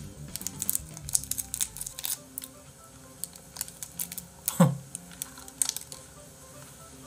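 Cellophane candy wrapper crinkling as it is twisted and pulled open by hand, an irregular run of small crackles, over soft background music. About halfway through, a short falling swoop of pitch is the loudest sound.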